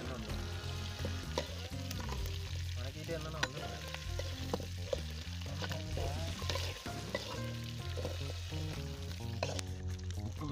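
Chunks of pork sizzling in their own fat in a large aluminium pan, stirred and scraped with a slotted metal spatula. Sharp clicks of the spatula against the metal pan come every second or two.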